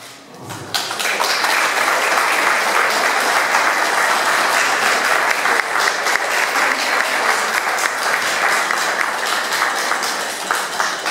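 Audience applauding at the end of a speech. The clapping swells within the first second, holds steady, and fades near the end.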